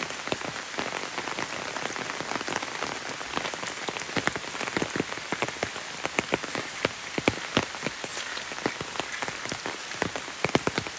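Steady rain, with many separate sharp drops striking an umbrella held overhead.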